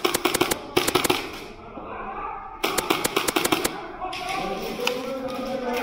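Airsoft gun firing two rapid full-auto bursts, one at the start and one about two and a half seconds in.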